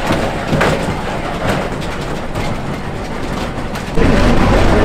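Earthquake simulation truck's shaking booth in motion: a steady rumble with scattered rattling knocks. About four seconds in, louder voices take over.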